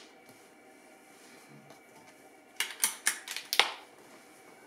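Air Arms S510 side-lever PCP air rifle being cocked: the side lever is pulled back and pushed forward, indexing the magazine to the next .22 pellet. It sounds as a quick run of five or six metallic clicks over about a second, starting about two and a half seconds in, with the last click the loudest.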